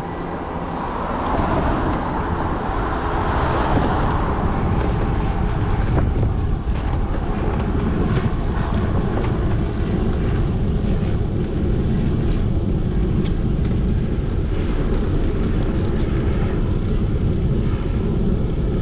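Steady wind rush and road rumble on an action camera's microphone while riding a fixed-gear bicycle. It grows louder about a second in, then holds.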